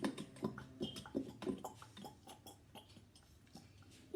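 Sticky homemade glue slime being squished and worked by hand: a run of irregular short wet clicks and smacks that thin out after about two and a half seconds.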